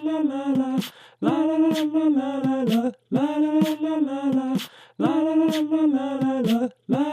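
A voice singing a short 'la la la' phrase without accompaniment, repeated in a loop about every two seconds with short breaks between, and sharp clicks inside each phrase.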